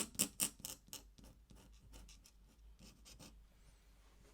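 Ink pen scratching on paper in quick, even strokes, about four a second, growing much fainter after about a second.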